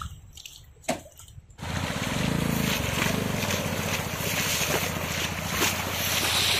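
A motorcycle engine comes in loud and steady about a second and a half in, with a rushing hiss over it. Before that there is a single sharp knock.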